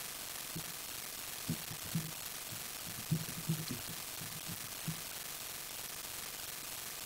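Computer keyboard being typed on, heard as a scatter of soft, muffled low thuds that bunch together about three seconds in, over a steady hiss.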